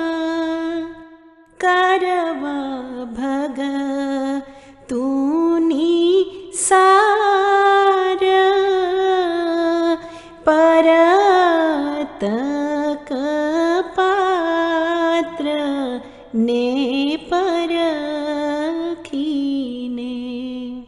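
A solo voice singing a slow devotional song in Gujarati, holding long notes that slide up and down in ornamented phrases, with brief pauses for breath between phrases.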